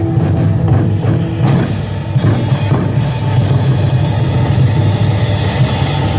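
Loud amplified rock-style band music with a drum kit, heavy in the bass; the music thins briefly about two seconds in, then returns brighter.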